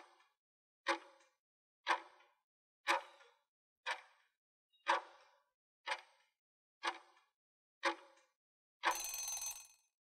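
Countdown timer sound effect ticking once a second, nine ticks, then a longer sound lasting about a second as the count reaches zero.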